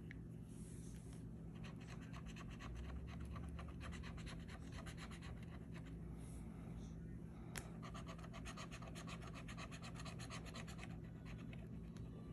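Metal bottle opener scraping the latex coating off a scratch-off lottery ticket in quick back-and-forth strokes, about ten a second, in two runs of a few seconds each with a short pause between. A single sharp tap falls in the pause.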